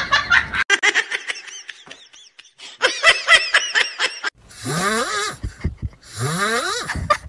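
Laughter in quick repeated bursts, followed by two longer breathy sounds that each rise in pitch.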